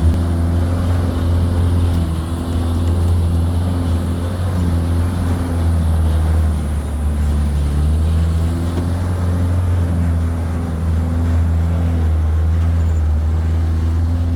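4x4 truck's engine working hard up a steep mountain road, heard from the open back of the truck, with a heavy low rumble. Its pitch steps up and down every few seconds as the engine changes pace on the climb.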